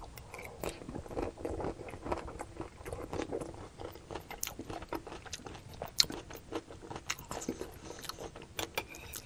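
Close-miked chewing of a mouthful of crunchy vegetable stir fry with crispy chow mein noodles: irregular wet crunches and mouth clicks.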